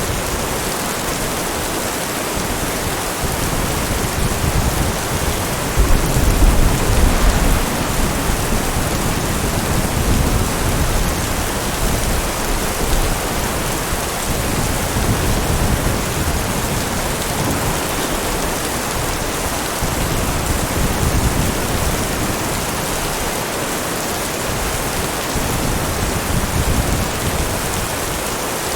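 Steady heavy rain falling, with a low rumble of thunder about six seconds in.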